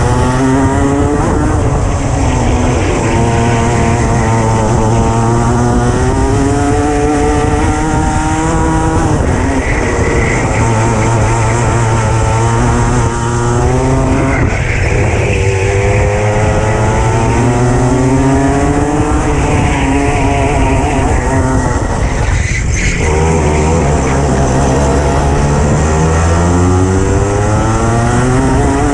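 Racing kart engine heard from on board at race speed, its revs climbing along each straight and dropping for each corner, over and over. There is a brief sharp knock about two-thirds of the way through.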